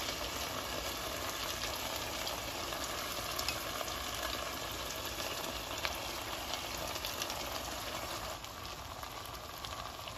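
Soaked basmati rice and mutton frying in a pot, sizzling steadily, with occasional light scrapes and ticks from a wooden spoon stirring it. The sizzle eases a little near the end.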